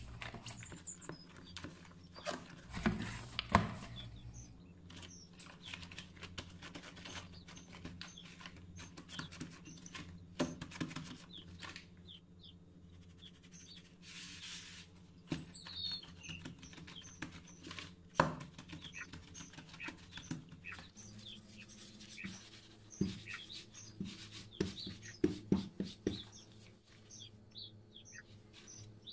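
Pizza dough being handled on a kitchen counter: soft knocks and rubbing as it is punched down, floured and rolled out, loudest a few seconds in, near the middle and in a cluster near the end. Small birds chirp now and then in the background over a low steady hum.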